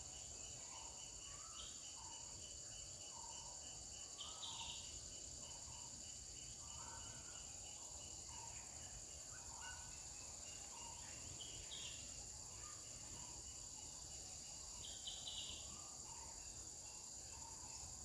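Faint outdoor insect chorus, a steady high drone of cicadas or crickets, with a bird repeating short mid-pitched calls about once a second and two brief louder chirping bursts, around five seconds and fifteen seconds in.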